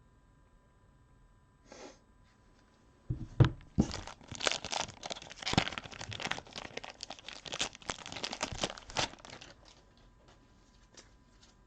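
Plastic wrapping being torn open and crinkled by hand: a run of sharp rips and crackles lasting about six seconds, loudest at the first tear.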